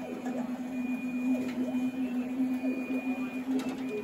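CNC router gantry's stepper motors driving the spindle head along the table, whining in repeated rising and falling pitch glides as the axes speed up and slow down, over a steady hum and a fainter high whine that breaks off now and then. The head is under test with a capacitive height control, following the height of the work beneath it.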